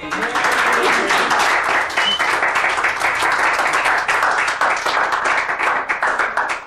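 A small group of people clapping and applauding, a dense patter of hand claps that cuts off suddenly at the end.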